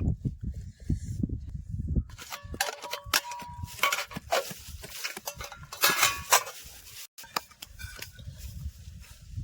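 A run of sharp knocks and clanks, some ringing briefly like struck metal or hard objects, from about two to seven seconds in, after a low scuffling at the start.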